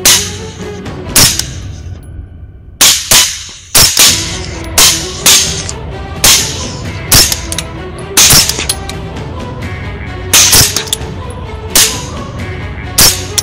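Rifle shots fired in quick succession at feral hogs, a dozen or more at irregular spacing, some in close pairs, each a sharp crack with a short tail. Background music plays underneath.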